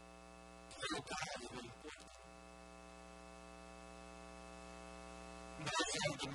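Steady electrical mains hum with many even overtones. A man's voice breaks in briefly about a second in, again around two seconds, and near the end.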